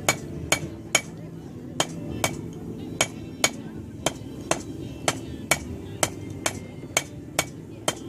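Blacksmith's hammer striking hot steel on an anvil, drawing out the bar with the toe of the hammer: a steady run of sharp, ringing blows, about two a second.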